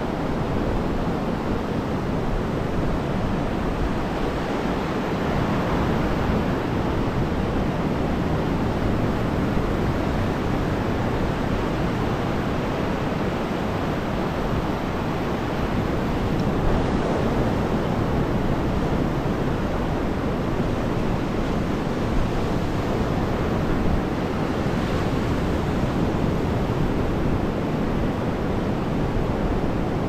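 Sea surf washing onto the shore: a steady, continuous rush of waves.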